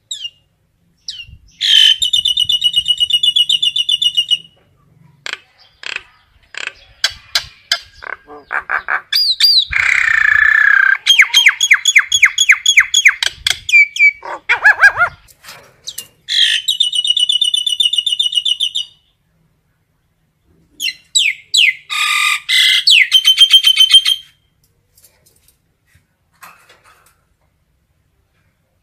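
Common myna calling: several bursts of rapid repeated notes and rattles mixed with gliding whistles, separated by short pauses.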